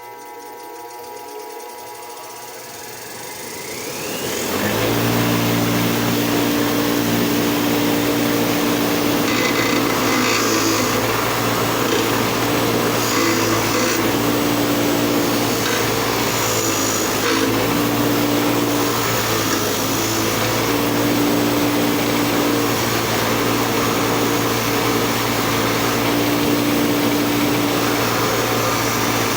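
Bench grinder with a wire wheel spinning up to speed with a rising whine about four seconds in, then running with a steady loud hum. Steel lineman's pliers held against the wire brush make a scratchy rasp that comes and goes.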